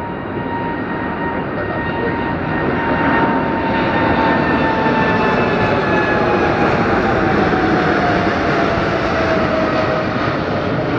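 Boeing 747-8F freighter's four GEnx-2B turbofans passing low overhead: a loud jet noise with a whine that slowly falls in pitch as the aircraft goes by, loudest in the middle.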